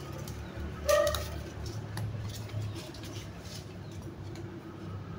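A short animal call about a second in, over light clicks and rustles of cut branches being handled.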